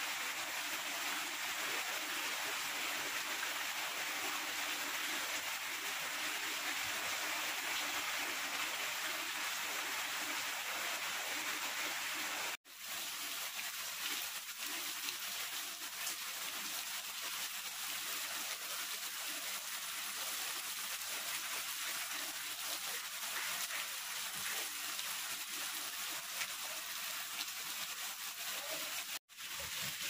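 Rain falling steadily, an even hiss of drops on leaves and wet ground. It breaks off twice for a split second.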